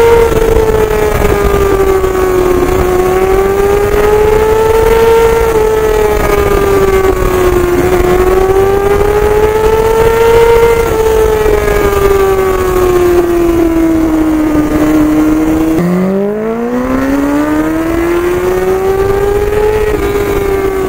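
Honda CBR600 F4i inline-four engine under way, its note rising and falling gently with the throttle, under a heavy rush of wind noise. About three quarters through, the engine note drops sharply as the throttle closes, then climbs steadily back up.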